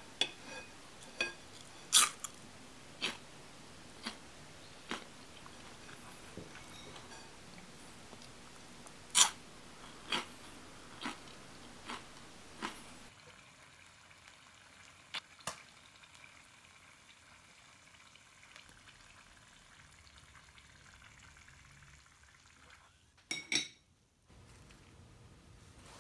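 Sharp clicks and taps on a porcelain plate, about one a second with two louder ones, as crisp deep-fried small fish is handled and pulled apart; later quieter handling with a couple of soft clicks and a short louder clatter near the end.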